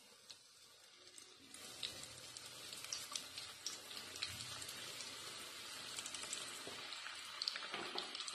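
Semolina-coated potato cutlets deep-frying in hot oil, a steady sizzle with scattered crackles. The sizzle gets louder about a second and a half in as more cutlets go into the oil.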